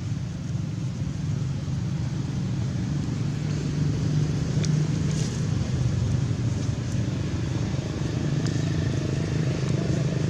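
Steady low rumble of an engine running, with a few faint ticks over it.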